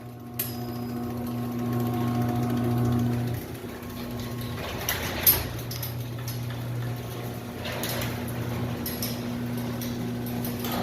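Electric garage door opener motor running with a steady hum as it drives the door, with a single knock about five seconds in. The down-travel limit is set too far, so the door hits the floor and the opener reverses it back up.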